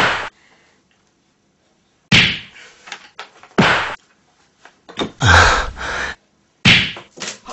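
A series of heavy thuds and slams, four in all, the third longer than the rest.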